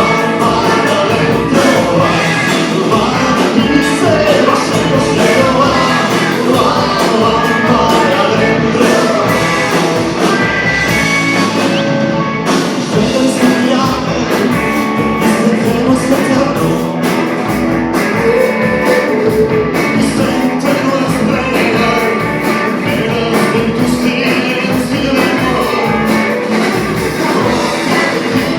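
Rock band playing live, with a singer over guitar and drums keeping a steady beat.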